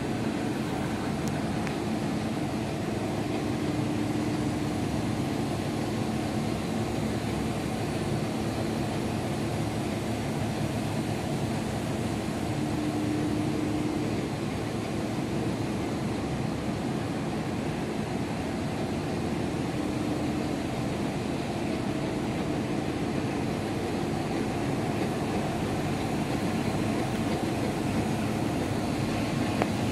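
Rotogravure printing machine running with a steady mechanical hum, a low tone in it holding throughout.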